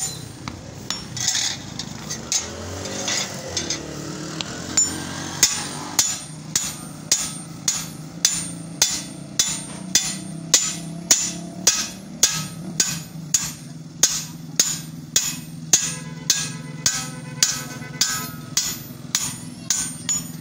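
Steady hammering, about two blows a second, during repair of a chaff-cutter machine, with a steady low hum underneath.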